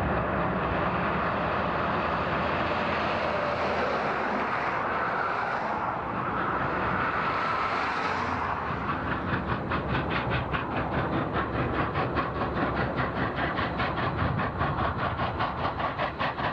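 Large steam locomotive approaching and running past with a steady rumble and hiss. From about eight seconds in, a fast, even beat of about five strokes a second sets in as it draws near.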